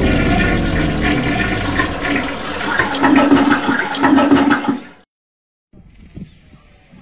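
Toilet-flush sound effect: a loud wash of rushing water that cuts off suddenly about five seconds in. After a brief silence, faint outdoor background sound follows.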